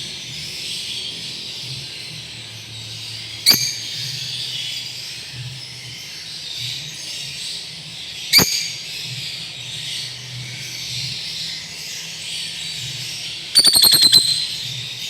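Lovebird giving sharp, high single calls twice, several seconds apart, then a quick run of about seven short calls near the end, over a steady high background hiss.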